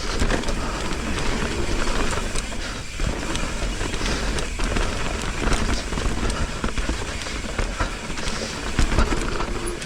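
Mountain bike riding down a rough dirt trail: tyres rolling over dirt and rock with a constant clatter of small knocks and rattles from the bike, over a steady low rumble.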